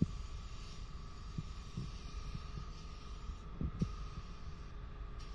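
Paint spray gun shooting white base coat, a thin high air hiss that stops briefly several times in the later part as the trigger is released between passes. Underneath, a low rumble with a few soft thumps.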